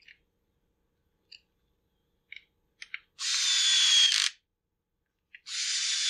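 Cordless screwdriver driving screws into a chainsaw's plastic housing: two short runs about two seconds apart, each about a second long, with a steady whine that dips slightly in pitch near the end of the first. A few light clicks of parts being handled come before.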